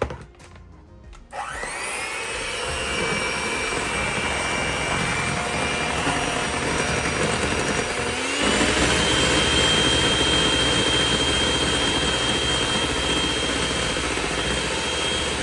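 Electric hand mixer starting up about a second in and whirring steadily as its beaters whip egg white, water and vanilla to a froth in a plastic bowl; its pitch steps higher about eight seconds in.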